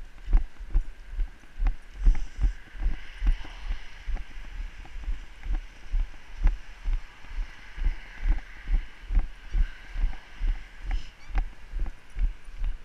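Low thumps in a steady rhythm, about three a second, over a steady hiss: the jolting of steady movement along the trail behind two huskies pulling on a line.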